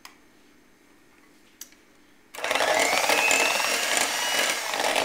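Electric hand mixer switched on about two seconds in, its motor running loud with a rising whine as it comes up to speed, beaters whipping creamed cake batter in a glass bowl.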